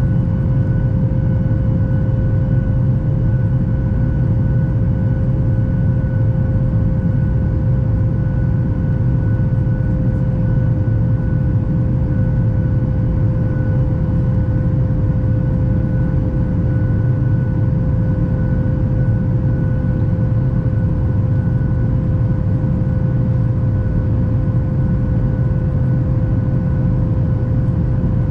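Cabin noise of a Boeing 737 MAX 8 heard from a window seat over the wing while climbing: its CFM LEAP-1B engines and the airflow make a steady deep rumble, with a thin steady hum over it.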